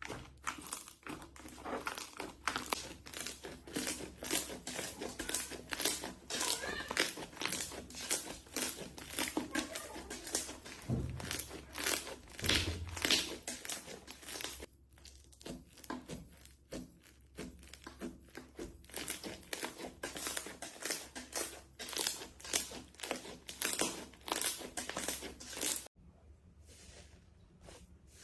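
Slime being squeezed and worked by hand, giving fast, dense crackling and popping, which stops suddenly near the end.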